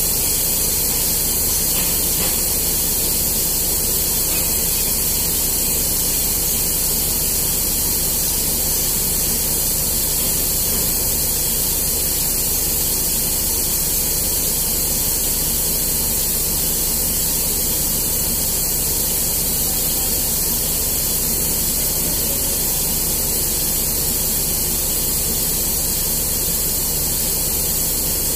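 Steady, even hiss with a low rumble beneath it, heard from inside a parked vehicle's cab.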